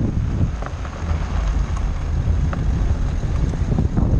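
Low, steady rumble of a Dacia Duster rolling over a gravel dirt track, with wind buffeting the microphone of a camera mounted on the outside of the car. A few sharp clicks stand out above the rumble.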